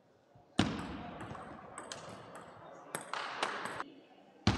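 Table tennis rally: a celluloid-type ball clicking sharply off rackets and table at irregular intervals of about half a second, echoing in a large hall, starting with a loud knock about half a second in.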